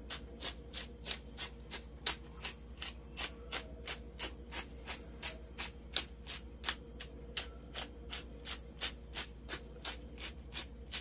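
Hand pepper mill being turned to grind allspice: a steady run of sharp clicks, about three to four a second.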